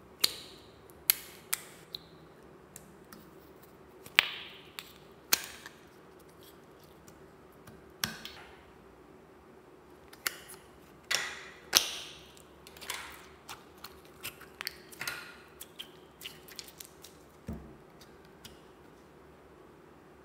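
Hard plastic slime containers being opened by hand: sharp snaps and clicks of lids and latches, a few spaced out at first, then a quicker run of small clicks. A dull thump near the end.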